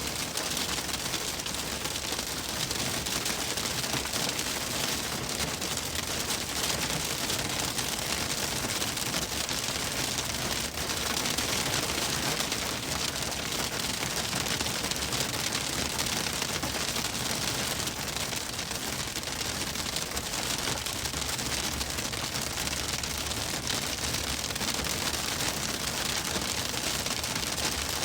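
Hail pelting a car's roof and windshield while it drives: a dense, steady clatter of countless small impacts.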